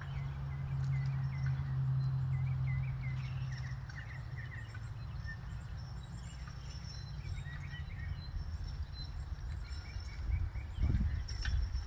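Rural outdoor ambience: small birds chirping in quick repeated notes over a faint insect buzz, with a low steady hum that drops away about four seconds in.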